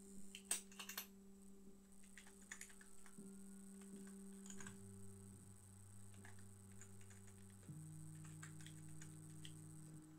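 Computer keyboard keys clicking faintly and irregularly as code is typed.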